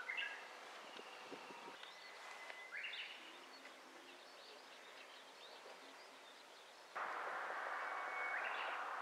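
Quiet outdoor ambience with birds calling in short rising chirps at the start, about three seconds in and near the end. About seven seconds in, a louder, steady hiss of background noise comes in abruptly.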